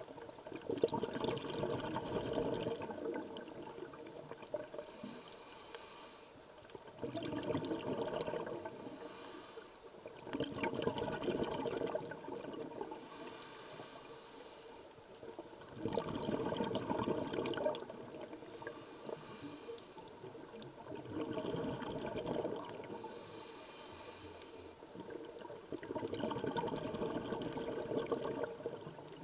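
Scuba regulator breathing heard underwater: a bubbly rush of exhaled air six times, each lasting about two seconds, with a fainter hiss of inhalation through the regulator between them.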